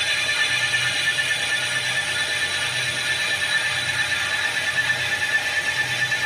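Metal lathe cutting, giving a steady high-pitched whine of several held tones over a low machine hum.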